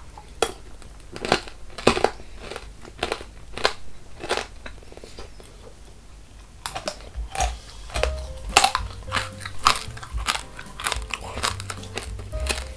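Brittle strands of hardened tanghulu caramel sugar being bitten and chewed close to the microphone: sharp, irregular crunching cracks about once or twice a second, a lull of about two seconds midway, then denser crunching near the end.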